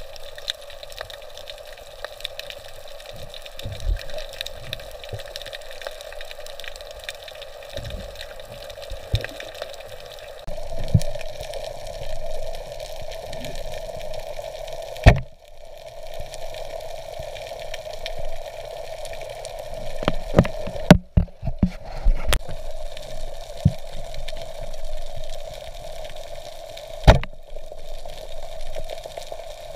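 Underwater sound picked up by a camera in the sea: a steady watery hiss with fine scattered crackles and clicks. It grows a little louder about ten seconds in, and sharp knocks stand out about fifteen, twenty-one and twenty-seven seconds in.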